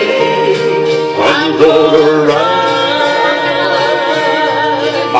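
Country gospel music: long held, wavering notes over a steady, regular beat.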